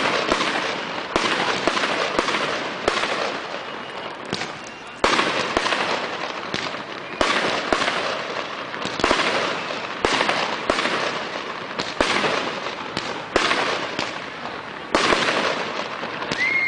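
Aerial fireworks display: shells bursting with sharp bangs, mostly about a second apart with a short lull early on, and crackling between the bursts.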